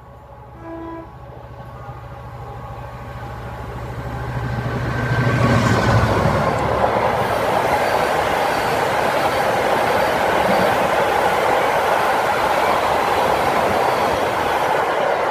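Freight train passing. A brief horn note sounds about a second in. The locomotive's low drone then builds and goes by about five to six seconds in, followed by the steady rumble and clatter of a long rake of double-deck car-carrier wagons rolling past.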